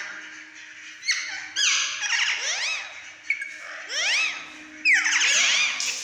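Several parakeets screeching: harsh, overlapping calls that swoop up and then down in pitch, coming in repeated flurries.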